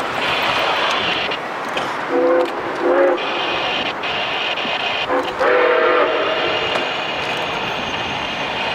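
Nickel Plate Road 765, a 2-8-4 Berkshire steam locomotive, running with its chime whistle sounded in short blasts: two about two and three seconds in, then a short one and a longer one around five to six seconds, over the steady rumble of the train.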